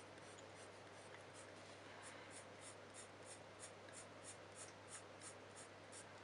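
Caran d'Ache Luminance coloured pencil stroking on drawing paper, laying down fur with short strokes. The scratching is faint and settles into a regular rhythm of about three strokes a second from about two seconds in.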